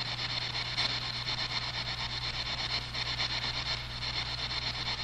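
Ghost-hunting spirit box sweeping through radio static: a steady hiss chopped into fast, even pulses, over a low steady hum.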